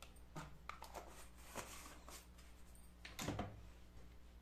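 Faint clicks and light taps of kitchen utensils and ingredient containers being handled, with one louder knock about three seconds in, over a low steady hum.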